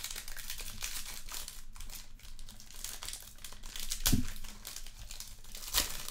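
Foil wrapper of a 2020 Black Football trading-card pack crinkling and tearing as it is opened by hand. A dull bump about four seconds in is the loudest moment.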